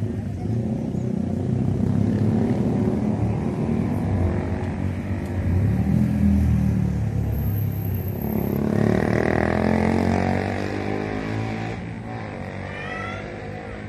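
A motor vehicle engine running, likely a motorcycle, louder through the middle and fading away toward the end. Near the end there are a few short, high, rising chirps.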